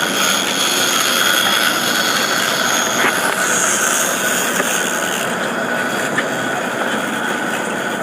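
Big-game fishing reel's drag buzzing steadily with a high whine as a hooked blue marlin pulls line off it, over the boat's engine and water noise.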